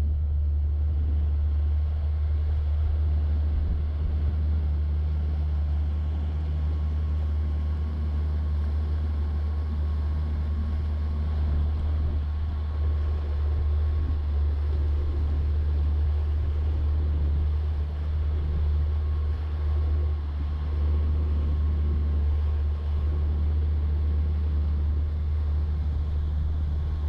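Fishing boat under way at sea, its motor running with a steady low drone.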